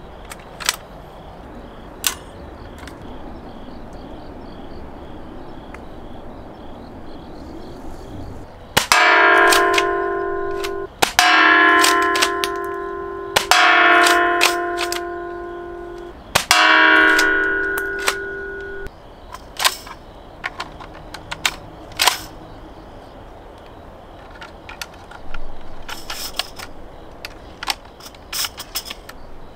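Airsoft gun shots and action clacks, with a metal target ringing after hits. Four loud hits in a row, each leaving a bell-like ring that fades over about two seconds, start about nine seconds in; fainter hits and shorter rings follow later.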